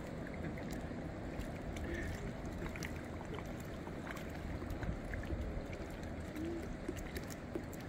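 Steady lakeshore ambience: wind on the microphone and small waves on the water, with scattered faint clicks.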